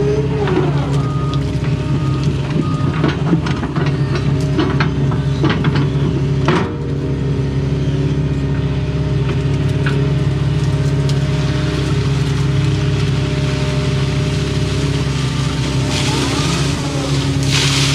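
Doosan excavator's diesel engine running steadily under load, heard from inside the cab, with clunks and scrapes from the bucket working the ditch in the first half and one sharp knock about seven seconds in.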